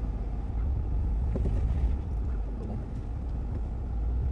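Ford Bronco's engine running at low speed as it crawls forward over rocks: a steady low rumble.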